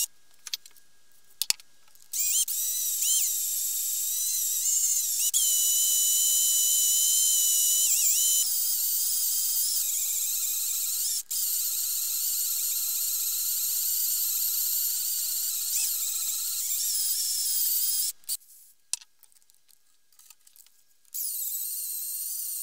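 Power drill boring a twist bit into the rusted steel of an axe head, its motor giving a high-pitched whine that wavers and dips in pitch as the bit bites. The drill stops briefly at the start and again for a few seconds near the end, then starts up again.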